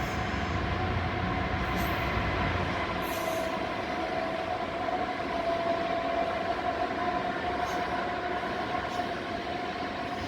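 A freight train rolling by: a steady rumble with a steady whining tone, and a few short, sharp clicks.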